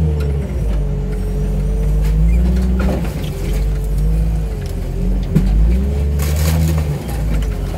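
Wheel loader's engine running under load, its pitch wavering up and down as the machine works against a stack of crushed car bodies, with a couple of short metal clanks.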